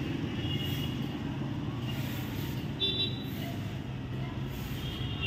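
Steady low rumble of road traffic, with a few short high-pitched tones about half a second in and again about three seconds in.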